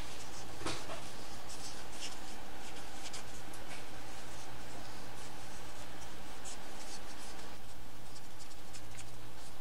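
Faint, irregular scratching and rubbing as the dirty outer ring of a skateboard ball bearing is scrubbed clean by hand, over a steady low electrical hum.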